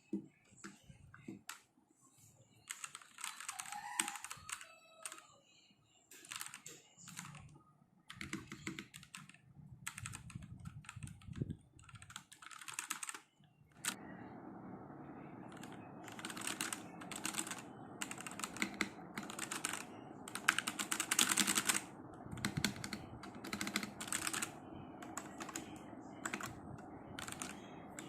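Typing on an Ant Esports MK1200 mini mechanical keyboard with red linear switches: quick runs of keystrokes with short pauses between. A steady hum comes in underneath about halfway through.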